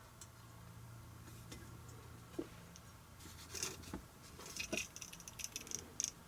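Faint handling noise from hands working an antenna mount and mast: light clicks and rustling. Sharper clicks come after about two seconds, with the clearest near the end.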